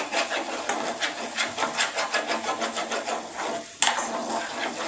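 Spatula stirring and scraping through a mixture in a kadai, in quick strokes about four or five a second, with one sharper knock against the pan about four seconds in.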